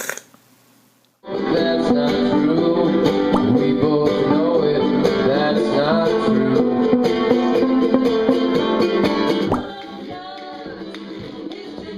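Live folk music: a strummed plucked-string instrument with singing, starting a little over a second in. Around ten seconds in it drops to a quieter passage.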